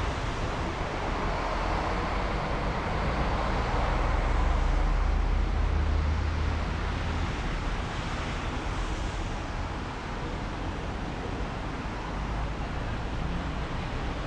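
Rain hiss and street traffic on wet city streets, with a vehicle passing: a low rumble swells about four to six seconds in, followed by a brighter tyre hiss on the wet road.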